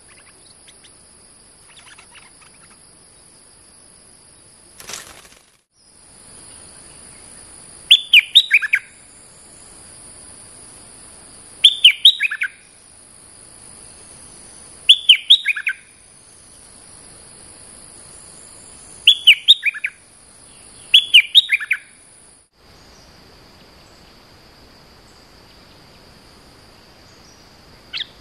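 Stripe-throated bulbul singing five short phrases a few seconds apart, each a quick run of falling notes. A steady high-pitched hum runs underneath.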